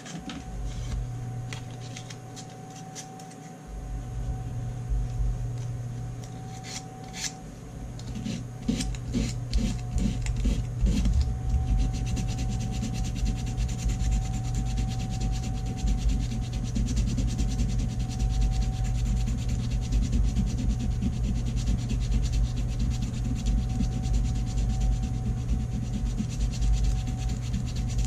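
220-grit sandpaper rubbed by hand over the Acraglas epoxy filling a chip in an antique revolver grip: a scratchy back-and-forth rubbing that starts about four seconds in and keeps going steadily.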